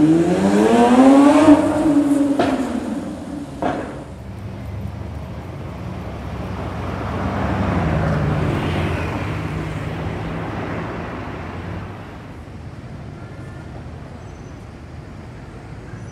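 Lamborghini Sián's V12 revving hard as it accelerates away, the pitch climbing then dropping at an upshift, with two sharp exhaust cracks a couple of seconds in. Then a red Bugatti Veyron's W16 engine runs at low revs as the car rolls past, fading to a quieter steady running.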